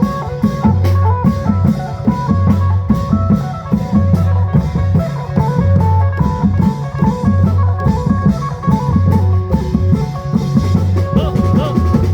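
Isan klong yao long-drum band music: drums beat a steady, driving rhythm under a plucked phin-lute melody and a repeating bass line.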